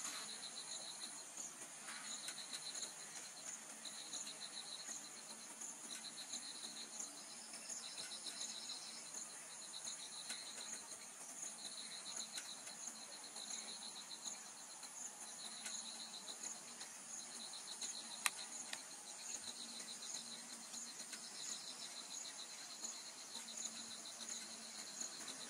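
Insects chirping in repeated pulsing bursts, roughly one every second and a half to two seconds, over a steady high-pitched drone of more insects.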